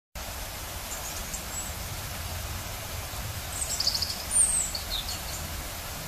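Steady rushing of a small waterfall pouring onto rock. A few high bird chirps sound over it for a moment a little past the middle; the loudest is a short falling call.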